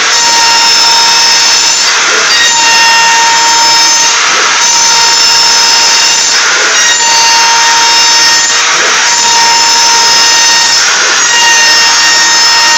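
Power tool with a Käsefräse milling cutter cutting wood. A steady high motor whine is broken by a burst of cutting noise about every two seconds, the whine dipping each time the cutter bites.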